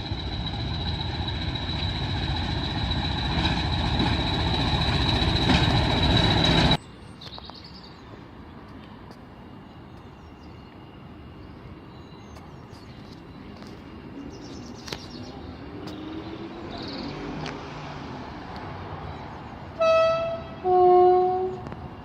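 A train running past close by, a loud rumble with a steady high squeal, growing louder until it cuts off abruptly. After a quieter stretch, a train horn sounds twice near the end: a short blast, then a longer, louder one.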